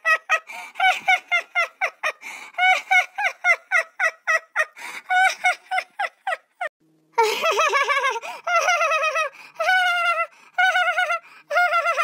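High-pitched cackling laughter in rapid short bursts, about five a second, breaking off briefly about seven seconds in and going on in longer, wavering laughs.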